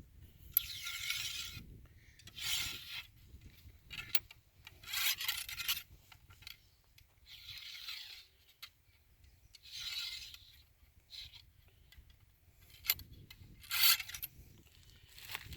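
Ramrod rubbing in the bore of a 16-gauge muzzle-loading shotgun, pushing tight over-powder cards down onto the powder charge: about six rasping strokes a second or two apart, with a few small clicks between them.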